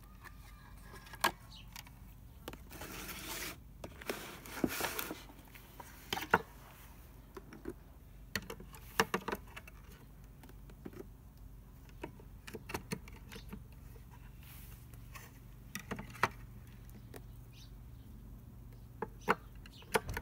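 Scattered plastic clicks and knocks as batteries are fitted into the battery tray of an SM4 bat detector's plastic case, with a couple of short bursts of rustling a few seconds in.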